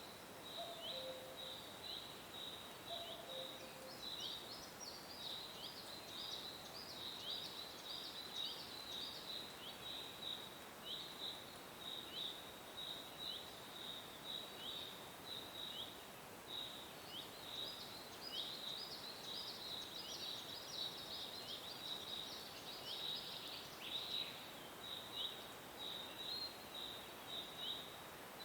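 Birds chirping in a nature soundscape: a steady run of short, high chirps about twice a second, joined by higher twittering for a few seconds at a time. A few low notes sound in the first few seconds.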